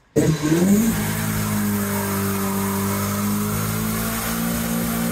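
Mazda MX-5's four-cylinder engine comes in suddenly, its pitch dipping and then climbing within the first second, then held at steady high revs.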